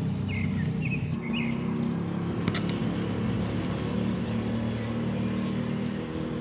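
Swiftlets at their nests chirping, a few short high chirps in the first second and a half, over a steady low hum. A single sharp tick about two and a half seconds in.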